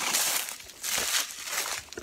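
Footsteps crunching and rustling through dry fallen leaves on a forest trail, about one step a second.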